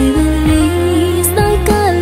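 Background music: a melody that slides between held notes over steady, sustained bass notes.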